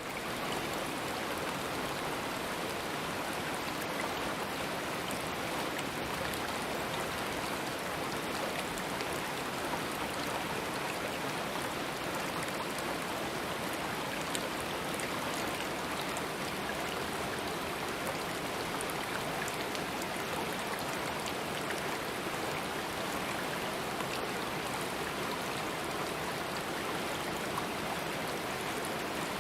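Steady rush of a stream flowing over rocks, with small splashes and trickles through it.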